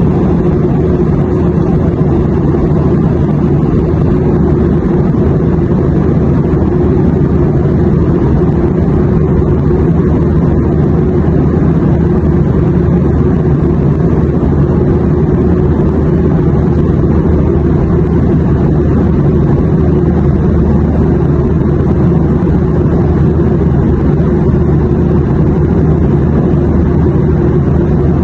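Airplane noise: a steady, even rumble, strongest in the low range, with no changes throughout.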